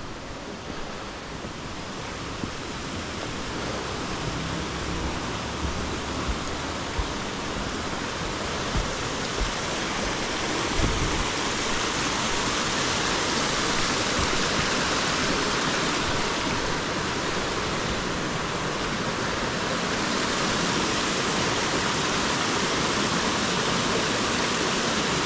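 A creek running on the trail, a steady rushing hiss that grows louder over the first half and then holds steady, with a few short low knocks in the first half.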